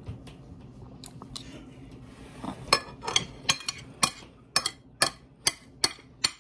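Hard tapping close to the microphone: a run of sharp taps, about two a second, that starts a bit under three seconds in.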